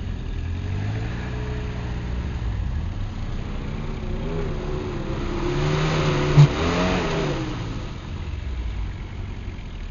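Off-road 4x4's engine revving under load, climbing in pitch to a peak and then dropping back, with a single sharp knock about six seconds in.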